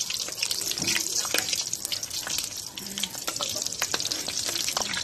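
Cheese sticks wrapped in spring-roll wrappers deep-frying in hot oil in a wok: a steady sizzling hiss crowded with small crackles and pops.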